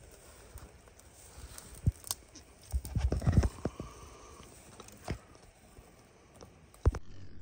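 Footsteps through dry grass and brush, uneven, with the loudest cluster of steps about three seconds in. Just before the end the sound cuts to a steady low hum.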